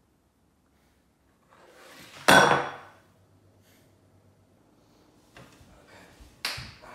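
A fist banging down on a kitchen benchtop about two seconds in, one loud knock with a brief ringing clink of crockery rattled by the blow.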